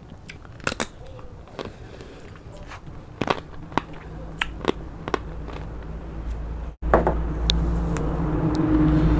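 Close-up eating sounds: chewing and lip-smacking clicks at the microphone. After a break about two-thirds through, a much louder steady low motor hum, like a vehicle engine running, takes over.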